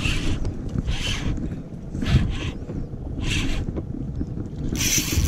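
Spinning reel being wound in short bursts, about once a second, as a hooked fish is brought close to the boat, over a steady rumble of wind on the microphone.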